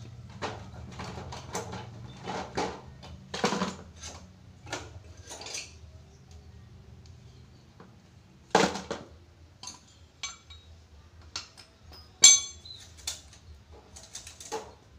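Metal engine parts and hand tools clinking and knocking against each other and the concrete floor while a motorcycle engine is taken apart, with two louder clanks, the later one ringing briefly.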